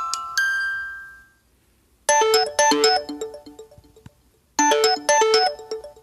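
LG V20 alarm tones. A rising chime run rings out and fades, then after a short silence a new alarm tone starts: a brief, bright melodic phrase played twice, about two and a half seconds apart.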